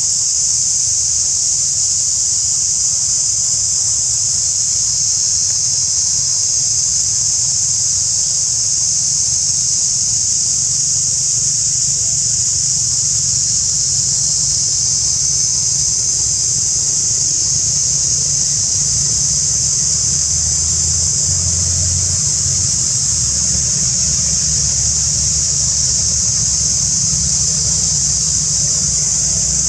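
Steady, loud, high-pitched drone of cicadas, unbroken throughout, with a low rumble underneath that grows a little stronger in the second half.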